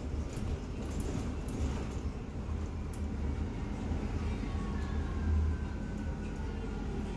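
Interior of a Bustech ZDI bus under way: a steady low drone of the engine and drivetrain with road noise. A faint whine falls slightly in pitch over the second half.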